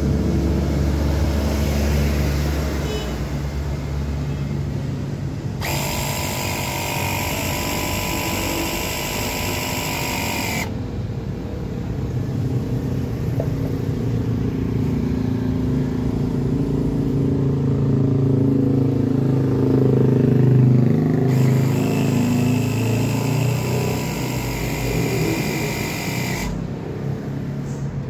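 Mini electric air compressor running steadily, its motor and piston making a continuous buzzing drone as it pumps up a bicycle tyre. Twice, for about five seconds each, a brighter, higher sound joins in: once about six seconds in, and again near the end.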